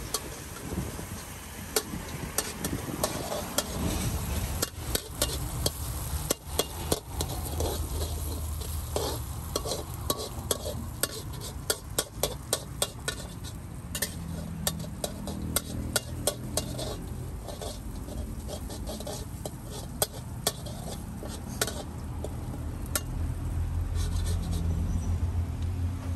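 Metal spatula clanking and scraping against a wok as food is stir-fried and sizzles, with quick irregular strikes that come thickest in the middle. A steady low rumble runs underneath and grows louder near the end.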